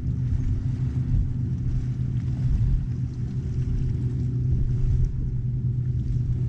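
A boat motor running steadily: an even low drone with no change in speed.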